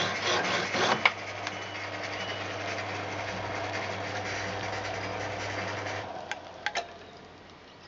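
Shop-built electric power hacksaw, belt-driven by a 1/6 hp Hoover motor, cutting a hardened steel bolt. The rasping blade strokes end with a sharp clack about a second in, as the blade goes through the bolt. The saw then runs on with a steady motor hum, which stops about six seconds in, and a few light clicks follow.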